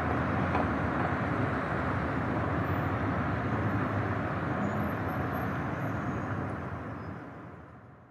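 Steady city street traffic noise, an even low rumble of passing vehicles, fading out over the last second or two.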